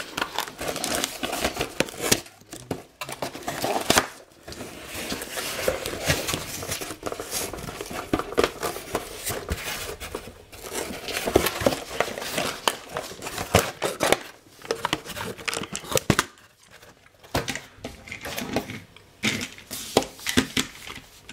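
Cardboard toy box being torn open and the packaging crinkled and handled: irregular tearing, rustling and clicks as the plastic toy plane is worked free, with a quieter pause about sixteen seconds in.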